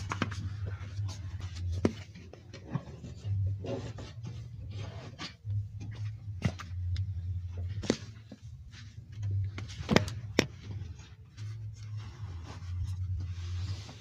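Household cleaning and handling sounds: a cloth rubbing over a wooden bed frame, and scattered knocks and taps as things are handled. A low hum comes and goes underneath.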